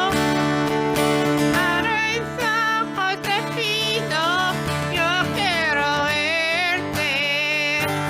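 A worship song sung over strummed acoustic guitar, with a voice carrying a wavering, gliding melody.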